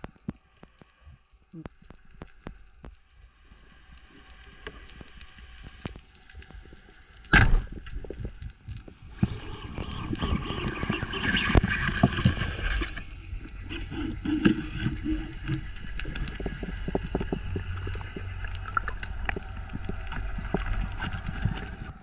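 Underwater sound of a spearfishing dive heard through a camera housing: scattered faint clicks, a single sharp crack about seven seconds in, then a steady wash of water noise with crackling and knocks.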